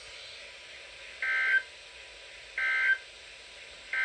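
Emergency Alert System SAME end-of-message data bursts: short, buzzy two-tone digital warbles, each about a third of a second long, repeated about every second and a half. Two sound in full and a third starts right at the end; they signal that the alert message is over.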